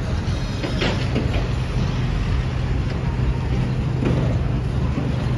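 City traffic noise: a steady low engine hum under a constant haze of street noise, with a few faint knocks about a second in.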